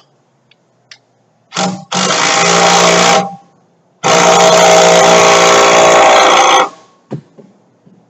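Handheld power tool running in two bursts, the first about a second and a half long and the second nearly three seconds, with a steady whine; a few light clicks before and after.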